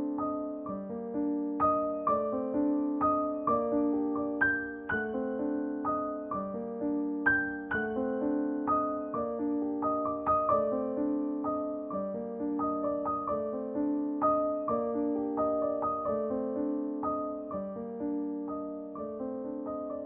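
Solo piano background music: struck notes in a flowing melody over low notes that change every second or two.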